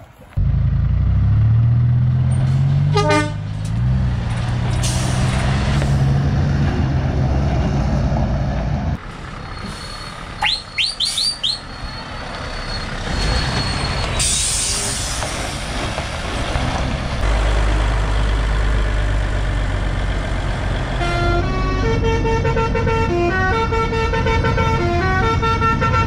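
Heavy lorry diesel engines and air horns. For the first nine seconds an engine revs up with a short horn blast about three seconds in. After that come a run of quick high rising chirps, a burst of air hiss, and from about 21 seconds a musical multi-note truck horn playing a tune of stepped notes over the idling engine.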